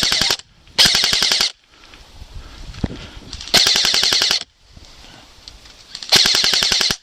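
Airsoft guns firing on full auto: four short bursts of rapid, evenly spaced shots, each under a second long. The first burst cuts off just after the start, the others come about one, three and a half, and six seconds in.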